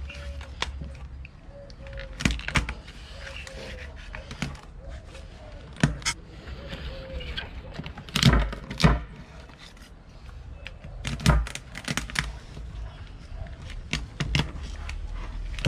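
A knife splitting a spiny lobster lengthwise on a plastic cutting board: sharp cracks of the shell giving way and knocks of the blade against the board, coming irregularly every second or two.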